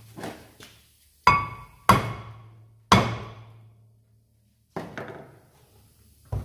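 A ball-pein hammer knocks on the front brake disc and hub of a Range Rover Classic. There are about five sharp metal blows, spaced unevenly, and each one rings on for about a second.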